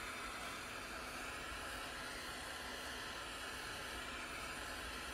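Handheld gas torch flame hissing steadily as it heats a solder-seal connector on a wire splice.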